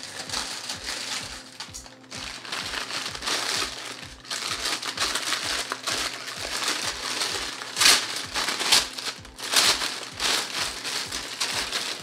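Clear plastic bag crinkling and rustling as it is handled and opened, with a couple of sharper, louder crinkles past the middle, over background music with a steady low beat.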